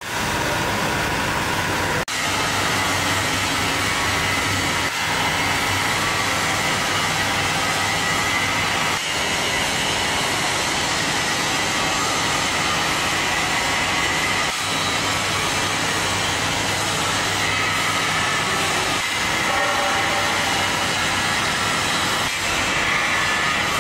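Textile machinery running at a steady, loud din, with a constant hum of several steady tones over a noisy whirr. It drops out for an instant about six times.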